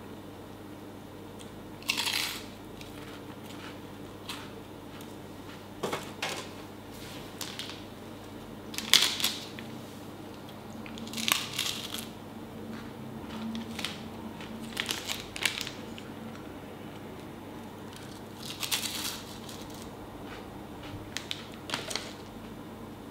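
A crisp biscuit snack being bitten and chewed, with its plastic wrapper crinkling. It makes short crunchy sounds every few seconds, about seven in all.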